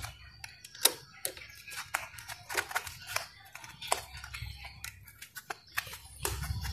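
Irregular sharp clicks and taps of a small nut and bolt being handled and threaded by gloved fingers onto a motorcycle cable holder bracket, the loudest click a little under a second in.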